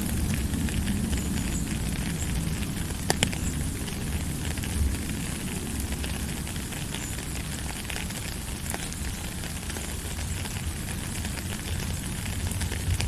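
Steady hiss over a low rumble, sprinkled with small crackles and one louder snap about three seconds in.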